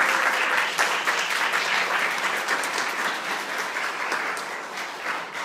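Audience applauding: many hands clapping in a dense patter that slowly dies down toward the end.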